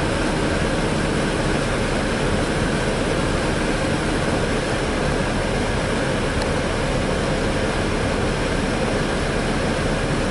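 Heavy snow-removal machinery, a front loader and dump trucks, running with a steady, unbroken engine noise.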